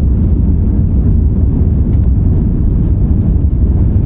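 Steady low rumble inside the cabin of an Airbus A350-900 in its climb shortly after takeoff: its Rolls-Royce Trent XWB engines at climb power together with airflow over the fuselage.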